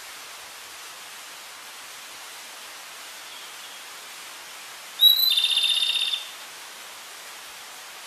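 A flycatcher, the tledekan gunung, gives a single call about five seconds in: a short rising note, then a rapid trill lasting about a second, over a steady hiss.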